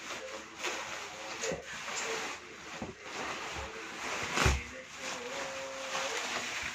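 Packaging being handled and rustled while unboxing a noodle maker, with one sharp knock about four and a half seconds in.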